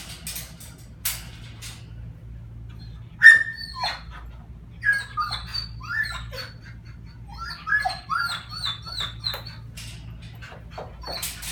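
A dog whining and whimpering: a string of short, high cries, mostly falling in pitch, starting about three seconds in. A few sharp clicks come before them.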